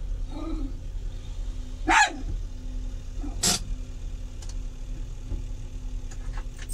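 A dog barks sharply twice, about two seconds and three and a half seconds in, over the steady low hum of an idling engine.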